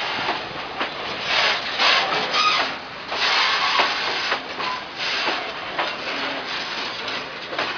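Open-top freight wagons rolling past close to the track: steel wheels on the rails make a steady hissing, scraping noise with irregular clicks and knocks and a few brief squeals.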